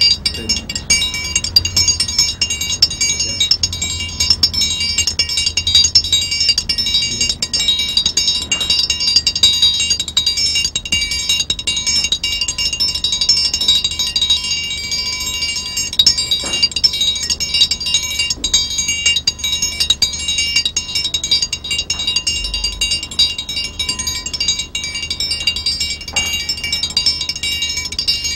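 Instrumental music made of steady, ringing high tones, with a few soft strikes scattered through it.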